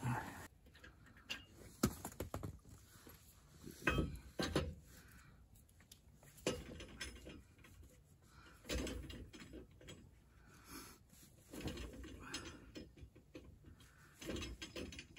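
Metal clanks and clinks of a tire iron on the lug nuts of a pickup's wheel during a tire change, coming irregularly every second or two.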